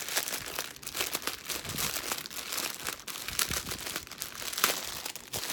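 Clear plastic packaging crinkling in irregular crackles as it is handled and opened: a cellophane sleeve around a strip of small bagged resin drills for diamond painting.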